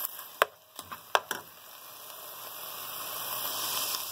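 Goat meat pieces sizzling in a pot over a high flame, the hiss growing steadily louder as the meat starts to sear, with two knocks of the stirring spoon against the pot about half a second and a second in.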